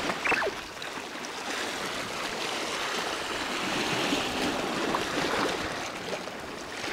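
Sea surf washing steadily over shore rocks, an even rush of water. A short falling squeal sounds once near the start.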